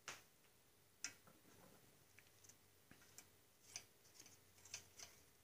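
Near silence broken by faint, irregular light clicks and ticks of small metal parts being handled on a small engine's governor linkage.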